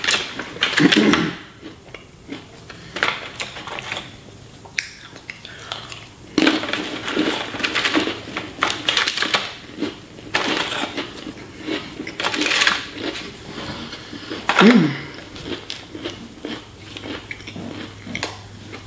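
Irregular crunching and crackling of crackers and cookies being eaten, with light clicks from a plastic Lunchables tray being handled.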